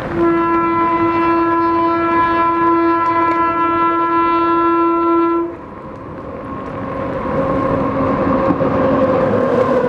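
Indian Railways WAG-9 electric locomotive sounding one long, single-pitched horn blast of about five seconds, then the train's running rumble growing louder as it approaches and passes at speed, with heavy rain hissing underneath.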